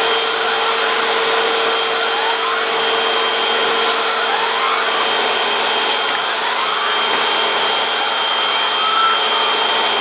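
Dirt Devil ReAction upright vacuum cleaner running steadily, its hose wand and attachment sucking at a fabric curtain valance. A few faint rising whistles come and go over the steady motor noise.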